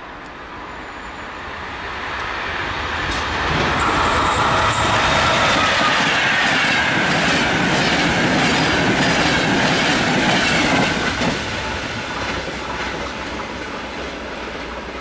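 Intercity train hauled by an E402A electric locomotive passing through the station at speed: the rush of wheels on rails builds for about four seconds, stays loud with rapid clicking over rail joints for about seven seconds as the coaches go by, then fades as the train recedes.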